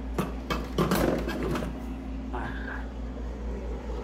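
Commercial freezer's refrigeration compressor humming steadily, running on a 3-in-1 hard-start kit (relay, overload and capacitor) fitted in place of its damaged start relay. A cluster of short handling clicks and knocks comes in the first second or so, and a brief high chirp about two and a half seconds in.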